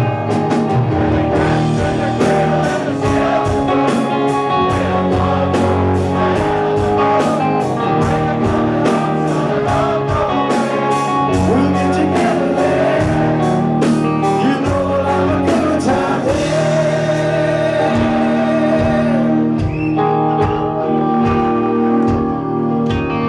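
Live rock band playing a ballad on drums and electric guitars while a crowd sings the chorus. The drums drop out about twenty seconds in, leaving the guitars.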